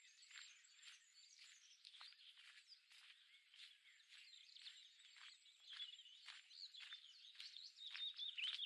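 Several songbirds singing at once, faint at first and louder near the end: busy chirps and warbling phrases, with a thin high note repeated over and over. Soft footsteps on a path fall underneath at a walking pace.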